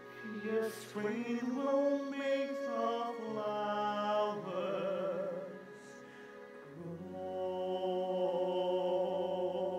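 A man singing a slow musical-theatre ballad over sustained accompaniment, with vibrato on held notes. The line breaks briefly about six seconds in, then picks up with a long held chord.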